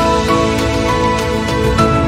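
Background music: a gentle melody of held notes over sustained chords, with faint regular ticks of a light beat.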